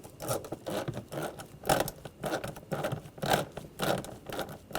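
Hand ratchet with a socket worked back and forth to snug a door-panel screw, its pawl clicking in a run of short zipping bursts.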